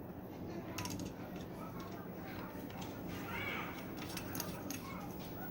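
Faint, scattered clicks of small metal parts, screws and the motor cover, being handled, over a steady low hum.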